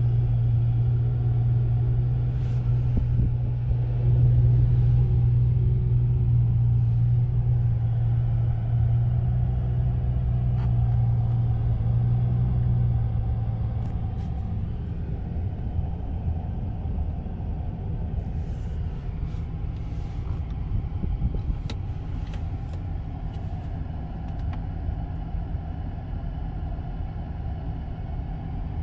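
Steady low rumble inside a Rolls-Royce Wraith Black Badge's cabin, with a deep hum that fades out about halfway through. A few light clicks come in the second half.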